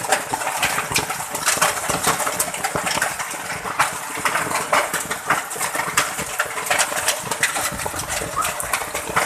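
Hailstones pelting an asphalt road during a storm: a dense, irregular patter of many small sharp impacts.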